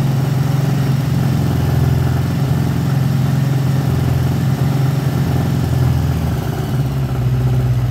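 1979 Honda GL1000 Goldwing's flat-four engine running on full choke, its note shifting slightly about six and a half seconds in. It will not keep running with the choke off, a sign that its carburetors need rebuilding.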